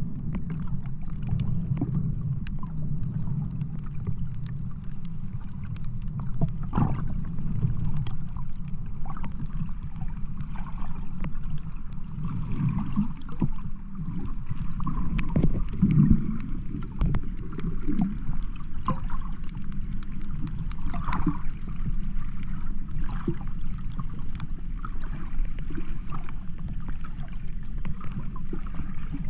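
Sea water sloshing and splashing over a steady low rumble, with scattered small clicks.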